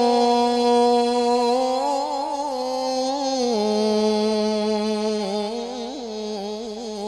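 A man's solo melodic Quran recitation (tilawah): one long held vowel, steady at first, stepping down in pitch about halfway through and then wavering in ornaments, cut off near the end.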